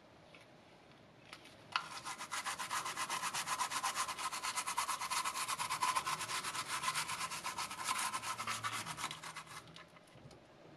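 Toothbrush scrubbing the plastic teeth of a dental model in rapid back-and-forth strokes. It starts about two seconds in and stops near the end.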